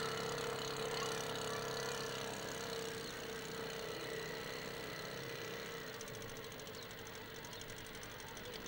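An engine idling steadily with a constant hum that slowly fades; a fast, even ticking joins about six seconds in.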